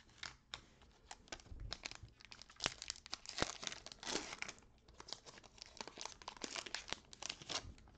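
Foil wrapper of a 2021 Donruss football card pack being torn open and crinkled by hand: a dense run of sharp crackles, loudest in the middle.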